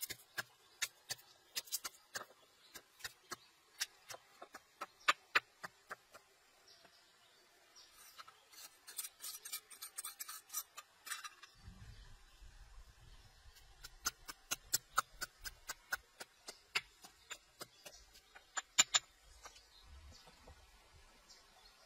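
A cooking utensil stirring dry food in a pot, with irregular sharp clicks and scrapes as it strikes the pan, and a denser stretch of scraping about eight seconds in. A faint low rumble comes in about halfway through.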